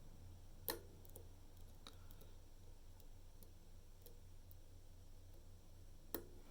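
A few faint, sharp clicks of a hook pick working the pins of a DOM IX Twinstar dimple lock, the loudest about a second in and another near the end, over a steady low hum.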